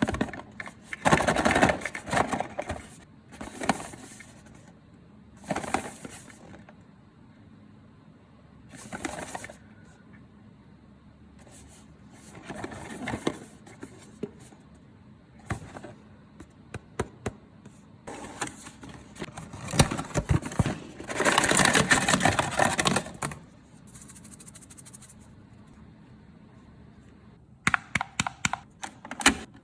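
Intermittent handling sounds while a Dolce Gusto capsule coffee machine is set up: short rustles, scrapes and knocks a few seconds apart, a longer rustle about two-thirds of the way in, and a quick run of clicks near the end.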